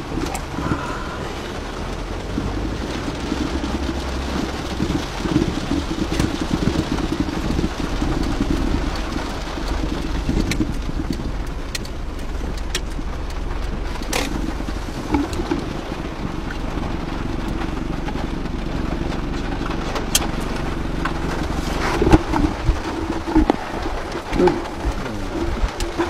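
Vehicle running with a steady low hum and rumble, with scattered clicks and a few louder knocks near the end.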